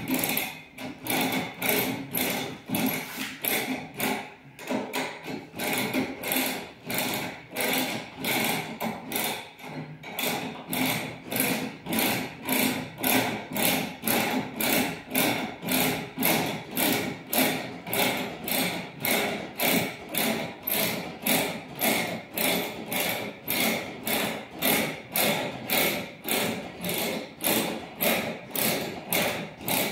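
Van's tool-kit car jack being cranked down by its handle, a regular metallic clacking about twice a second as the handle turns.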